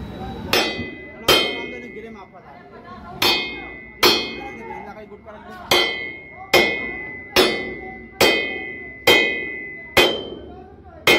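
Hammer striking steel on a truck's underside: about eleven ringing metal clangs, mostly a little under a second apart, with a short pause after the second blow.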